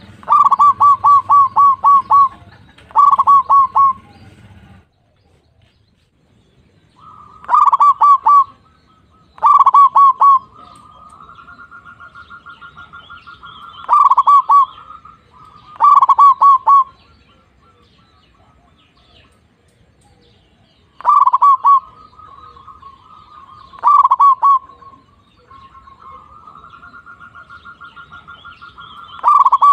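Zebra dove (perkutut) singing: about nine short phrases of rapid staccato coos, each a second or two long, with softer rolling trills in some of the gaps.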